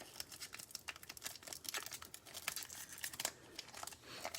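Foil wrapper of a Panini Prizm baseball card pack crinkling and tearing as it is handled and opened: a string of faint, quick crackles.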